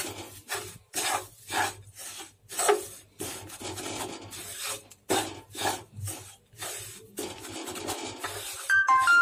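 Wooden spatula scraping and stirring powdered sugar into roasted gram flour in a nonstick kadhai, in quick repeated strokes about two a second. A brief ringing note sounds near the end.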